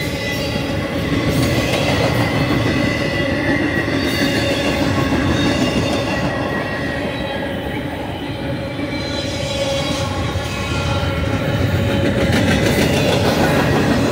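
Double-stack intermodal well cars rolling past close by: a steady, loud rumble of steel wheels on rail, with thin, high steady wheel squeal ringing over it. The sound swells slightly near the end.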